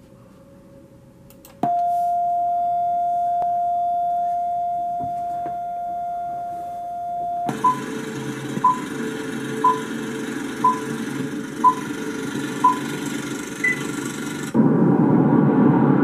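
A steady test-card tone held for about six seconds, then a film-leader countdown: a short beep every second over hiss, six beeps in all. Near the end a louder, even rushing noise comes in.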